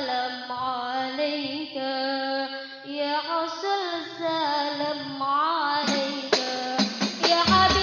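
A female voice sings a slow, unaccompanied melismatic sholawat line with wavering, ornamented pitch. About six seconds in, hand-struck frame drums (rebana) come in with a few sharp strikes, and a deep drum joins near the end.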